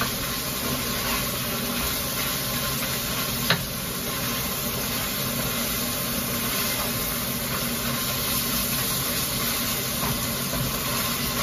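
Ground beef sizzling steadily in a skillet as it browns, with a single short knock about three and a half seconds in.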